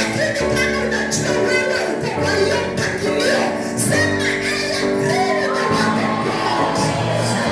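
Music with singing: sustained notes under a bending sung melody.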